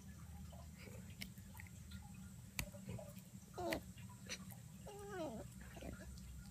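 A dog gnawing on a bone, with scattered clicks of teeth on bone and a few short, high whining grumbles that fall in pitch, the clearest about three and a half and five seconds in.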